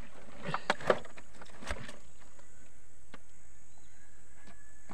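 Fish and a gill net being handled in a wooden dugout canoe: a few sharp knocks on the wooden hull and short splashes in the bilge water in the first two seconds, then only a steady background hiss.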